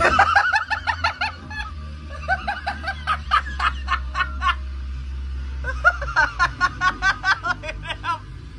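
A person laughing hard and high-pitched in three fits of rapid giggling with short breaks between, over a steady low hum.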